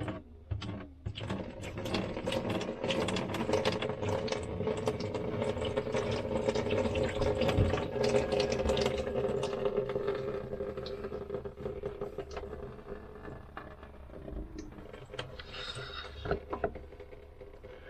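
Water poured into a trailer sink, splashing and running down the drain, loudest for about ten seconds and then tailing off. The drain flows freely to the gray-water tank, with no backing up now that the tank's cap is out.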